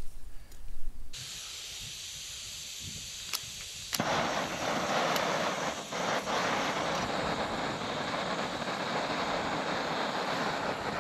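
Backpacking gas canister stove being lit: a knock or two of handling, then gas hissing from about a second in, a click, and about four seconds in the burner catches and keeps burning with a steady, louder rush under a pot.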